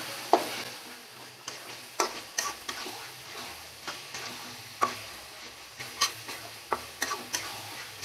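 Chicken frying in oil and spice paste in a karahi, with a faint sizzle, while a spatula stirs it, knocking and scraping against the pan at irregular moments. This is the stage of frying the meat in the masala until it gives up its water.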